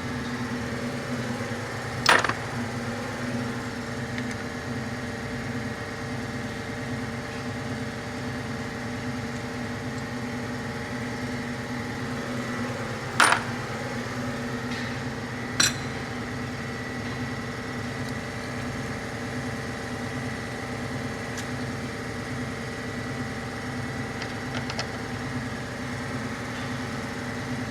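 Three sharp metallic clinks of hand tools on engine parts, about two seconds in and twice more past the middle, during camshaft removal from a cylinder head, over a steady machine hum.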